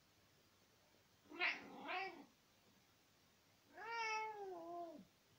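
Elderly tabby cat meowing twice: a short two-part call about a second in, then a longer meow that falls in pitch at the end.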